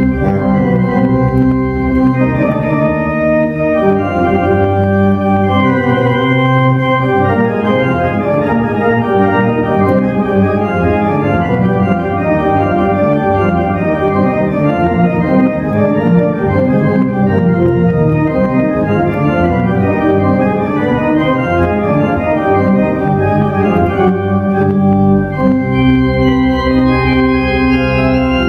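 A three-manual Schantz pipe organ playing loud, sustained chords over a deep pedal bass, with fast-moving notes through the middle and the low pedal note coming back in near the end.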